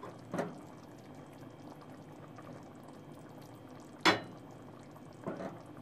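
Pot of hot corn soup bubbling gently just after the heat is turned off. Three short, sharp sounds come as strips of cheese are laid into it, the loudest just after four seconds in.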